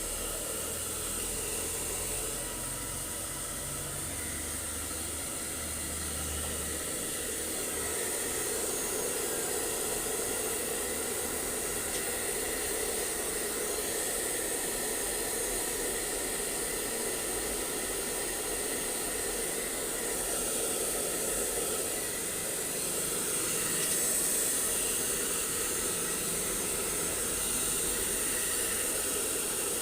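Blow dryer running steadily, drying a husky's wet coat after a bath, its rush of air rising a little at times.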